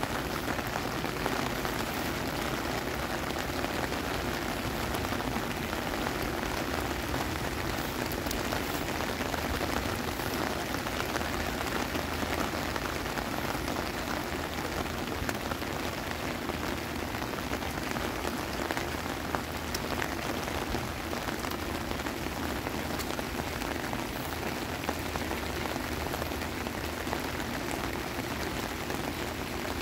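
Heavy rain pouring steadily: a dense, even hiss of drops hitting wet pavement and grass.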